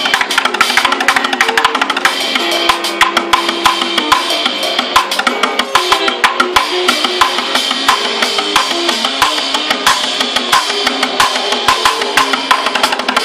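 Busking duo playing: a steady rhythm beaten on upturned plastic buckets, bucket drums, under a picked and strummed acoustic guitar line.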